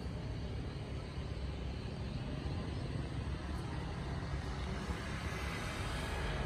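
Steady low rumble of distant road traffic from the town below, swelling slightly near the end.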